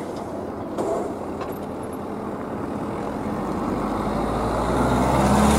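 A road vehicle approaching, its engine and tyre noise growing steadily louder over the last couple of seconds. A single knock about a second in.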